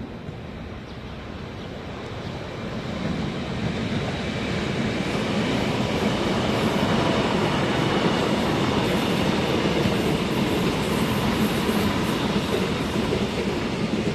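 Loud steady rumbling noise with a few faint high tones over it, building over the first six seconds and then holding.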